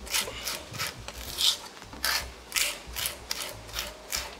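Chef's knife blade scraping salted garlic across a cutting board in repeated strokes, about two a second, mashing the garlic into a purée.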